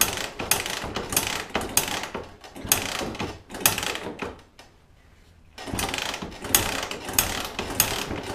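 1985 Suzuki LT230S Quadsport engine being turned over by hand with the spark plug out, to work fresh oil into the oil filter. It gives a run of short, sharp mechanical strokes, roughly one every two-thirds of a second, pausing about four seconds in and then resuming.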